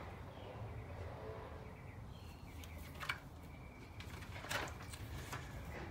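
Quiet backyard ambience with faint bird chirps, and a couple of brief paper rustles as a page of a spiral-bound book is turned, about three and four and a half seconds in.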